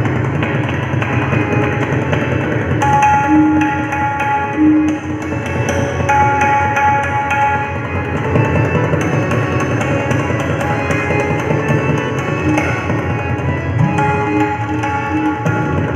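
Tabla solo in teental: rapid, dense strokes on the tabla over a harmonium playing a repeating melody (lehra) in steady held notes.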